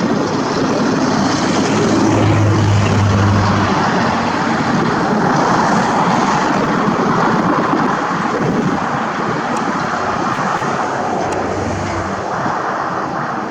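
Motor vehicle engine and tyre noise that is loudest a few seconds in, with a low engine hum, then slowly fades.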